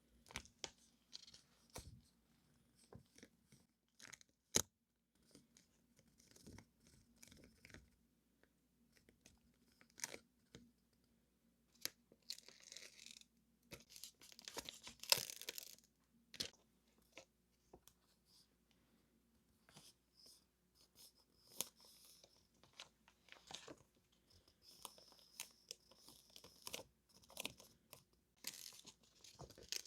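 Hands handling paper stationery and its packaging: intermittent rustling and crinkling, with scattered light taps and clicks.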